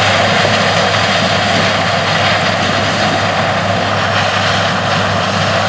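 Large diesel farm machinery running steadily in corn harvest: a constant engine drone with a low hum and even machine noise throughout.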